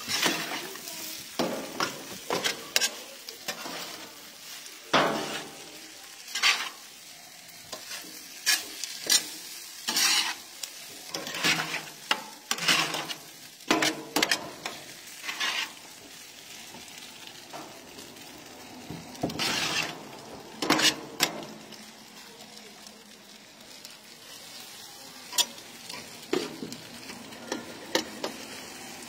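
Chicken pieces with onions and peppers sizzling on a gas barbecue's hot griddle plate, with a spoon and a slotted spatula scraping across the plate and tossing the food in short, irregular strokes.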